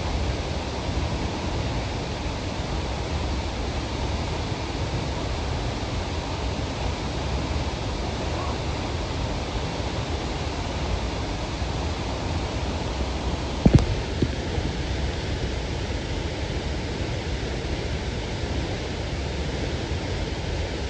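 Steady rushing roar of a waterfall, with one sharp knock about two-thirds of the way through.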